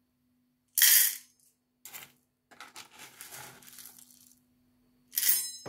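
Dry hamster food mix of seeds, pellets and flakes being poured from a plastic scoop into a metal bowl, rattling as it lands. There is a loud pour about a second in, a softer trickle in the middle, and another loud pour near the end, where the bowl rings briefly. A faint steady hum runs underneath.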